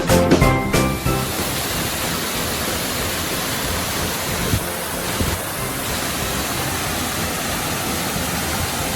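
Waterfall's water rushing and crashing as a steady, even roar. Music cuts out about a second in.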